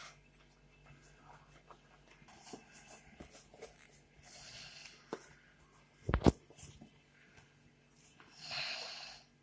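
Hands working a car gear-stick gaiter and its plastic trim: small clicks and rustles, with one loud knock about six seconds in. Two audible breaths, a little before halfway and near the end.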